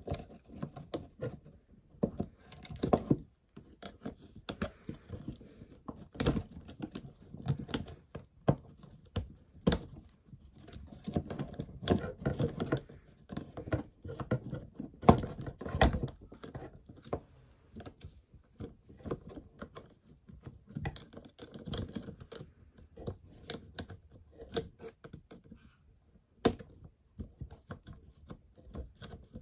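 Irregular small clicks, taps and scrapes of hands working inside an opened cordless drill, a thin pick prodding at the plastic housing and the motor's brush holder, with a few louder knocks.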